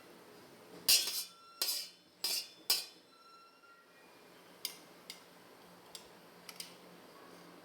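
Metal kitchen utensils clinking: four ringing knocks in the first three seconds, then a few lighter taps.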